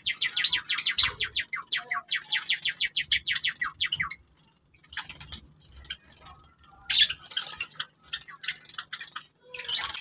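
Java sparrows calling in a fast, even run of short high chirps, about ten a second, that breaks off about four seconds in. Sharper single bursts follow later.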